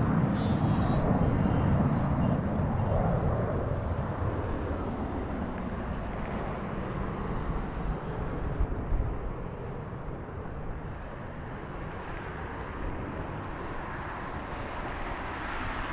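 Jet noise of a departing Boeing 767-300 freighter's two General Electric CF6 turbofans at takeoff thrust, a broad low rumble that fades steadily as the climbing aircraft draws away. A thin high whine rides over it for the first few seconds.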